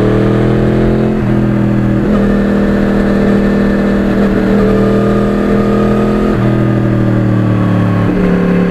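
2009 Yamaha R1's crossplane inline-four running through a custom carbon exhaust while the bike cruises under steady throttle. The engine note holds steady, then shifts pitch a few times: at about one and two seconds in, again around six and a half seconds, and near the end, as the throttle or gear changes.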